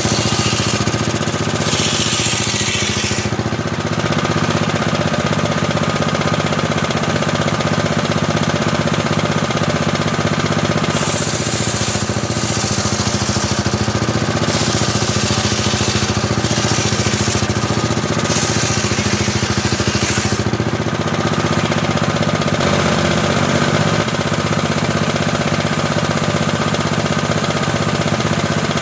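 Homemade table saw running steadily with a constant hum, cutting teak: several bursts of high hiss, each one to three seconds long, as the blade goes through the wood, mostly in the first twenty seconds.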